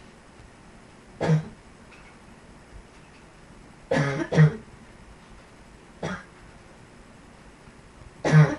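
A person's barking chest cough, in separate hacking coughs: one about a second in, a quick double cough around four seconds, a fainter single around six seconds, and another near the end.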